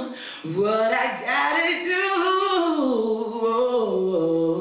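A young woman singing solo, one long phrase without clear words, with vibrato, that descends to a held lower note near the end.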